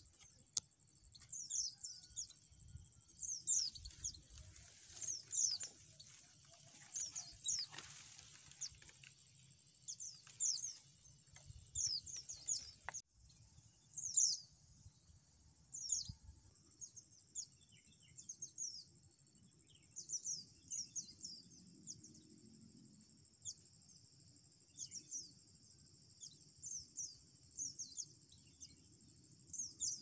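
White-eyes (pleci) calling: short, thin, high chirps that sweep downward, repeated in quick irregular runs with short pauses between. A steady high buzz, like insects, runs underneath.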